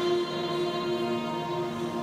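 Slow instrumental introduction to a choral song: long held notes, the choir not yet singing.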